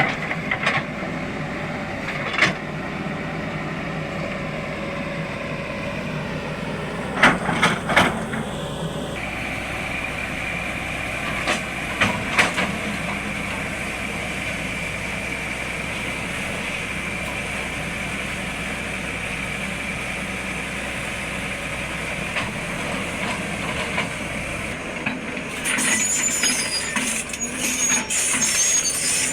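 Sany SY210 excavator's diesel engine running steadily, with a few sharp clanks along the way; near the end the sound turns louder and harsher.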